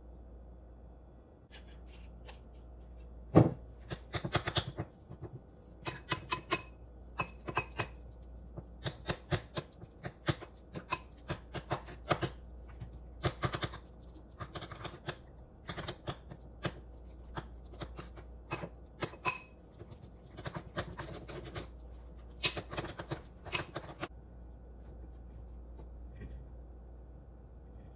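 Metal spoon scraping and clinking against a ceramic bowl while stirring and mashing shrimp paste with starch, in irregular strokes of one to three a second, with one sharp clink about three seconds in. The stirring stops a few seconds before the end.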